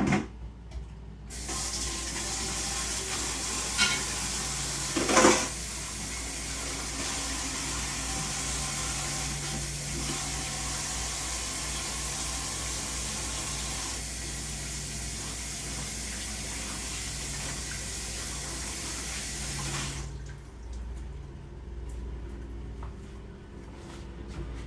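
Tap water running into a sink. It is turned on about a second in and shut off suddenly near the end, with two brief clunks a few seconds in.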